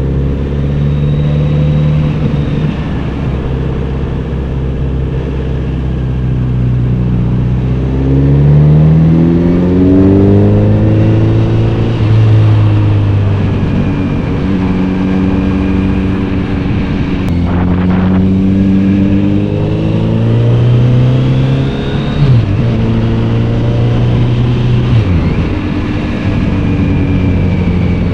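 Kawasaki Z900RS inline-four motorcycle engine and exhaust under way: the pitch climbs as it accelerates, drops back at gear changes, and holds steady while cruising, with a brief click about two-thirds of the way through.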